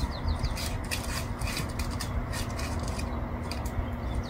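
Dry twigs and dead vines crackling and rustling in a run of short sharp snaps as a cat moves through the brush, with a few short falling bird chirps near the start.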